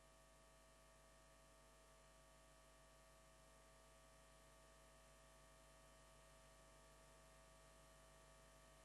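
Near silence: a faint, steady hum and hiss of the recording's noise floor.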